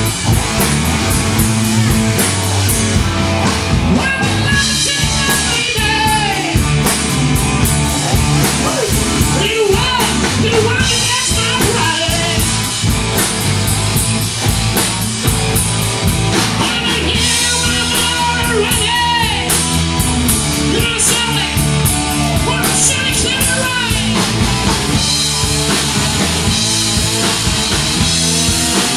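Live rock band playing a hard blues-rock song with distorted electric guitars, bass guitar, drum kit and singing, loud and steady throughout.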